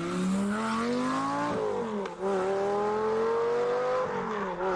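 High-revving sports-car engine, taken for a Lamborghini Gallardo V10 with manual gearbox, accelerating hard: the pitch climbs steadily, drops at an upshift about a second and a half in, climbs again, and drops at a second upshift near the end.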